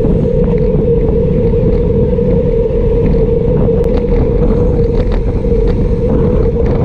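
Wind rushing over the microphone of a camera mounted on a moving road bike, a loud steady roar with a constant low drone underneath.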